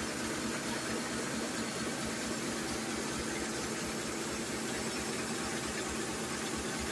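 Four-line 1/6-fold napkin tissue machine running: a steady mechanical hiss and hum with no breaks.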